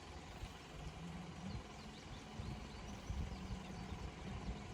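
Low steady motor hum, with a few faint high chirps over it.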